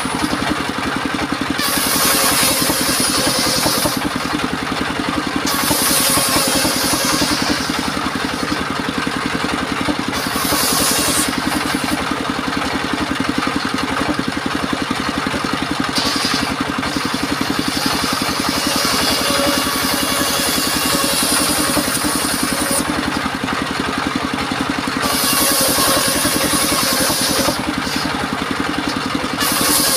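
Engine of a mobile circular sawmill running steadily, with a high hiss that comes and goes every few seconds.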